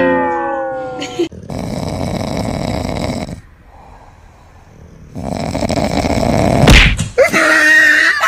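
Dog snoring loudly in deep sleep: two long, noisy snores a few seconds apart. A short falling-pitched sound comes in the first second, and a pitched sound comes near the end.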